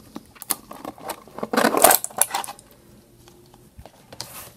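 Rigid clear plastic toy packaging being pried apart by hand: a run of clicks and taps, with a loud plastic crackle about one and a half seconds in, then a few lighter clicks.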